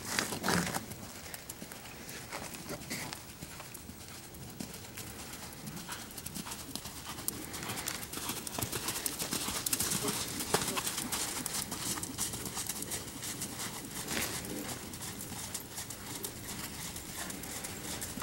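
A horse trotting on dirt arena footing: a steady run of hoofbeats, loudest about ten seconds in as the horse passes close.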